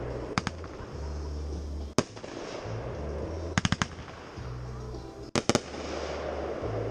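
Aerial fireworks bursting: a pair of sharp bangs at the start, one loud bang about two seconds in, a quick run of four cracks midway and three more bangs near the end. Music with a deep, stepping bass line plays throughout underneath.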